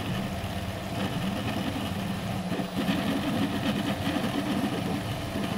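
Folgertech Kossel delta 3D printer printing at high speed, about 350% of its set speeds: its stepper motors and moving effector make a steady mechanical hum.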